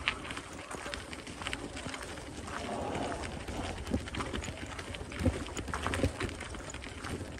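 Footsteps on a dirt-and-gravel path, a step about every second or a little less, over a low outdoor rumble with birds faint in the background.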